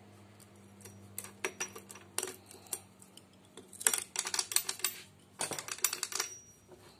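Light metallic clicks and clinks of steel engine parts being handled in a motorcycle's aluminium crankcase, as a gear is worked onto its shaft. The clicks are scattered at first, then come in two quick rattling flurries about four and five and a half seconds in.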